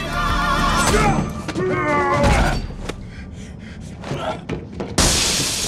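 Action-film fight soundtrack: music and a wavering voice over a few dull thuds and impacts, then a sudden loud crash about five seconds in.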